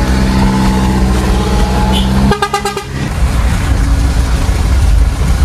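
Truck engine running with a steady, even drone; just after two seconds the sound breaks off briefly, then continues as a rougher engine and road noise heard from inside the cab.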